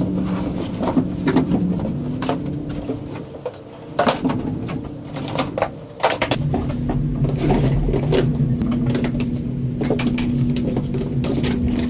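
Plastic wrap and cardboard packaging being handled, rustling, with scattered knocks and scrapes. A low steady hum runs underneath and grows more prominent about halfway through.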